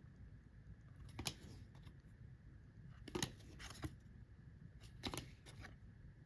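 Faint handling of Upper Deck hockey trading cards: a few soft clicks and swishes, a second or two apart, as cards are slid and flicked past one another.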